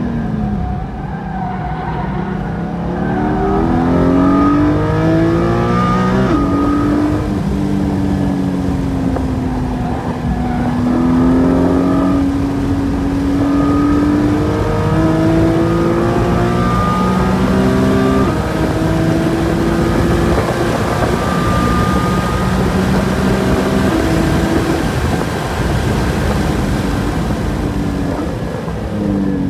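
Porsche 718 Cayman GT4's naturally aspirated 4.0-litre flat-six under hard track driving, heard from inside the cabin. It revs rising and falling through corners and straights, with sudden pitch drops at upshifts as the car goes from second through third to fourth gear.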